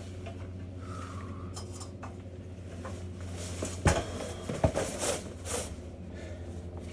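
Clothes dryer running without heat, a steady low hum. About four seconds in come scraping and a few sharp metallic clanks from the vent-cleaning brush and its rod working in the dryer vent duct.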